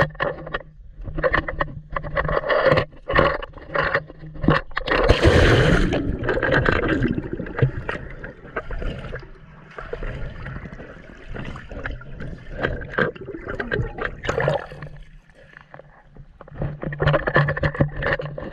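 Swimming-pool water splashing and sloshing against a handheld camera, with a loud splash about five seconds in. Duller, muffled water sound follows while the camera is underwater, and sharper splashing returns near the end as it breaks the surface.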